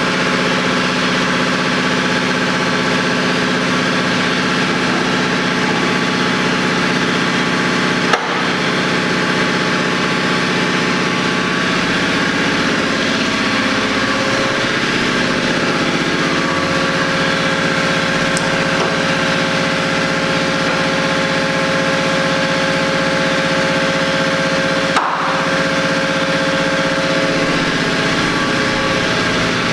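A motor running steadily with a constant hum of several even tones. Its pitch shifts a little about halfway through, and the sound breaks off for an instant twice.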